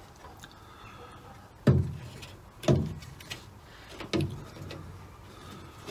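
A car speaker is handled and pushed into the hollow metal car door's speaker opening, knocking dully against the door three times, about a second apart.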